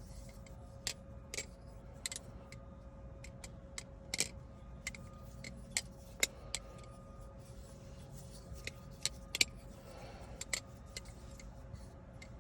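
Squid Industries Nautilus carbon fiber balisong being flipped: irregular light clicks and clacks as the handles and blade swing and meet.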